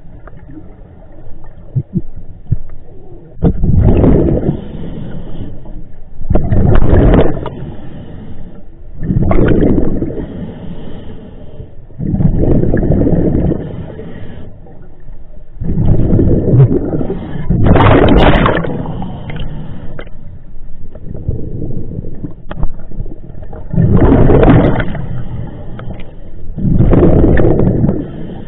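Scuba diver breathing underwater through a regulator, heard close up: loud bubbling rushes of exhaled air every few seconds, with quieter spells between breaths.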